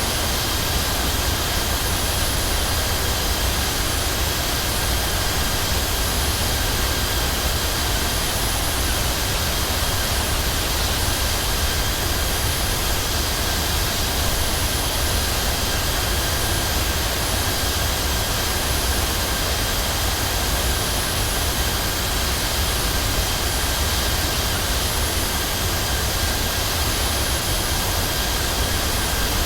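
Steady noise of an airliner's jet engines and rushing air, heard from inside the passenger cabin, with a few steady high-pitched whines over it.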